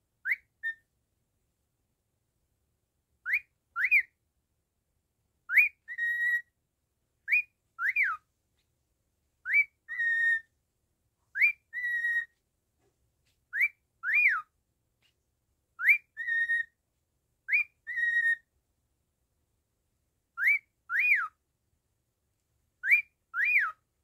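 Cockatiel whistling a short repeated phrase: a quick rising whistle followed by either a rise-and-fall or a short held note, about every two seconds.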